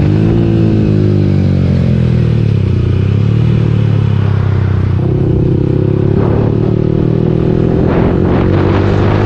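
Yamaha R15 V3's 155 cc single-cylinder engine running through an aftermarket slip-on exhaust, its note easing down and then rising gradually as the revs build again, with a few sharp crackles near the end.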